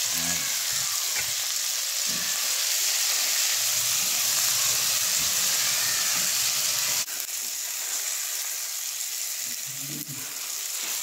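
Dried salted fish (daing) sizzling steadily in hot oil with sautéed tomatoes, garlic and onion in a frying pan. The sizzle drops suddenly to a quieter level about seven seconds in and continues.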